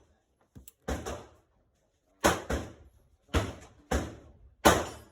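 A string of gunshots: about six sharp bangs, each dying away quickly, irregularly spaced, the strongest near the middle and end.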